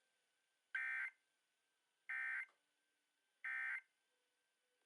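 Emergency Alert System end-of-message data signal: three short bursts of the two-tone digital warble, evenly spaced about a second and a third apart. It marks the end of the alert, here a Required Monthly Test.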